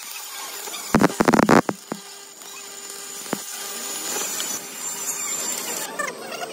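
Stick (arc) welding on steel plate: the electrode arc crackles and hisses steadily. About a second in there is a short cluster of loud knocks.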